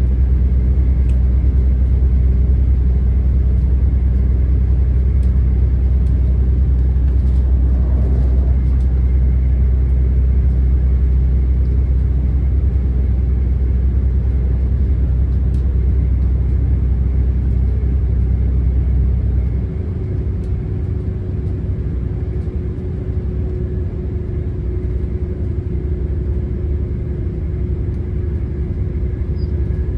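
Class 170 Turbostar diesel multiple unit running, heard from on board: a steady low drone from its underfloor diesel engine along with running noise, with faint clicks throughout. About twenty seconds in the low drone drops away, the sound gets a little quieter, and a steady hum holds on.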